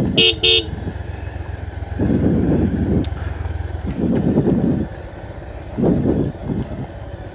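A vehicle horn beeps twice in quick succession just after the start, over a motor vehicle running with a steady low rumble that swells louder a few times.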